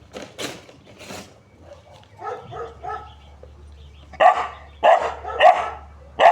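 A dog barking: three softer barks about two seconds in, then four loud barks spaced a little over half a second apart near the end.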